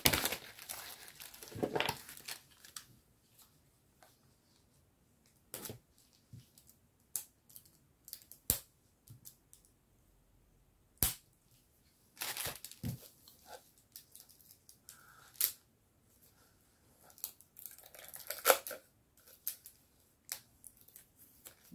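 Plastic wrapping on a large spool of gold metallic embroidery thread being handled and picked at to free the thread's end: short spells of rustling with scattered sharp clicks and quiet gaps between.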